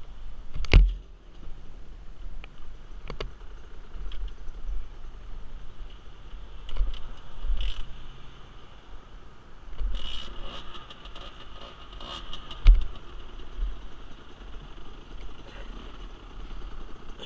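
Wind buffeting a helmet-mounted camera microphone in uneven gusts, with a few sharp knocks and clicks; the loudest knocks come near the start and about two-thirds of the way through.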